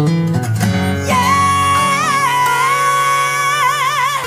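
A man singing one long, high note over acoustic guitar accompaniment in a rock ballad cover; the note comes in about a second in and wavers into vibrato near the end.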